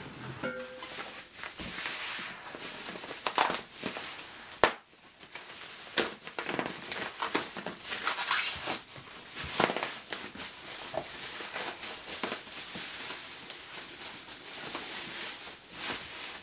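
Plastic bubble wrap crinkling and rustling as it is pulled and unwrapped by hand, with a few sharp snaps along the way, the loudest a little under five seconds in.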